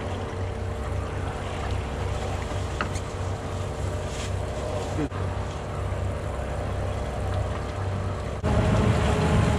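Boat engine idling with a steady hum, with wind on the microphone. About eight and a half seconds in the low rumble turns suddenly louder and rougher.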